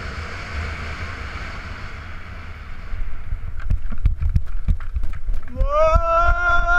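Wind rushing over the microphone of a paramotor pilot gliding in low. From about three and a half seconds in come a run of thumps and scuffs as his feet touch down and run on the ground. Near the end a long, rising, then held cheering yell begins.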